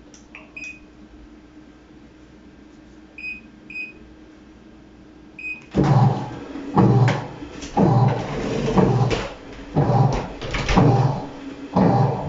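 Control-panel beeps of a Sharp ES-KS70K-P washing machine as buttons are pressed, followed by the machine starting its cycle: short repeated strokes about once a second, as the washer's motor turns the drum back and forth.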